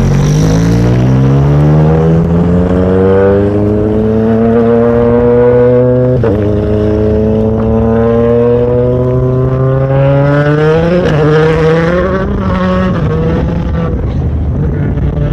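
2017 Ford Fiesta WRC rally car's turbocharged four-cylinder engine pulling away hard just after passing, its pitch climbing steadily. There is an upshift about six seconds in and more gear changes near the end, and the sound slowly fades as the car drives off.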